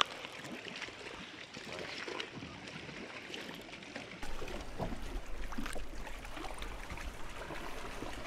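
Lake water splashing and lapping beside a boat while a hooked bass is played to the side, with scattered small clicks and splashes. A low steady rumble joins about four seconds in.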